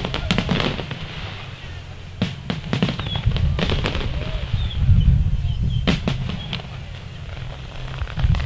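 Aerial fireworks display: shells bursting in irregular clusters of sharp bangs and crackles over a continuous low rumble, with the heaviest boom about five seconds in.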